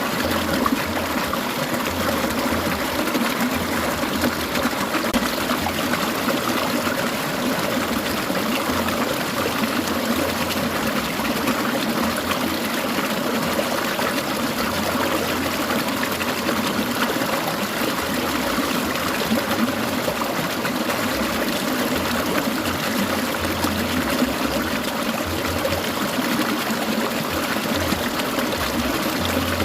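Clear mountain stream trickling and babbling steadily, with no breaks.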